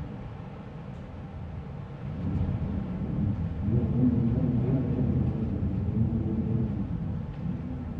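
Wind blowing in a low rumble, dipping at first and then swelling about two seconds in and staying up, with a faint wavering moan near the middle.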